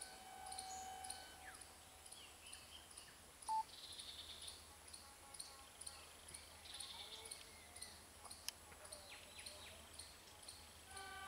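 Faint woodland ambience: scattered bird chirps and calls over a very regular high ticking about two times a second, typical of an insect. A distant steady tone fades out about a second in.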